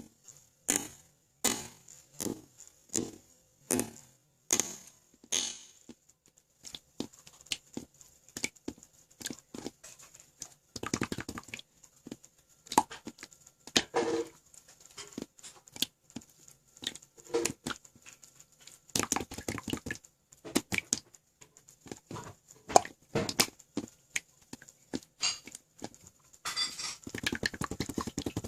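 Homemade slime being pressed and squished by hand, giving sharp sticky pops and clicks. They come in a steady run about every two-thirds of a second over the first few seconds, then turn into denser, irregular crackling bursts.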